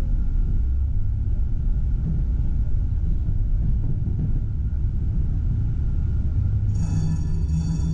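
Tram running along its track, a steady low rumble of wheels on rail with a faint steady whine above it. Near the end a short, high ringing sound comes in twice.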